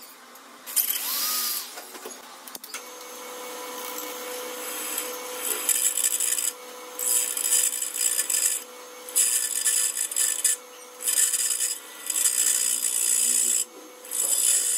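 Bench drill press motor starting about three seconds in and running steadily, while a small bit drills out the broken top screw of a KTM triple clamp. The cutting comes in repeated grinding spells of a second or two as the bit is fed in and backed off.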